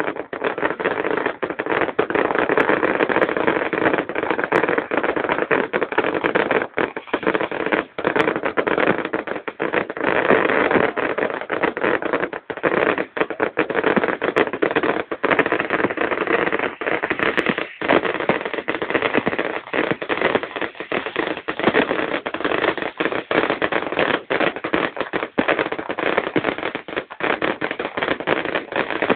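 Fireworks going off in a dense, continuous crackling barrage.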